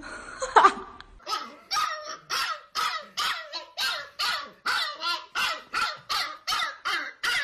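Husky puppy barking: a steady string of short barks, about two a second, starting about a second in.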